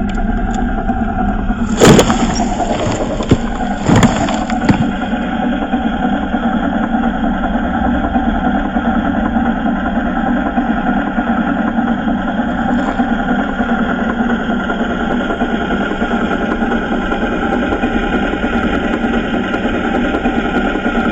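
RC truck running steadily with an engine-like hum at a constant pitch, with a few sharp knocks about two and four seconds in.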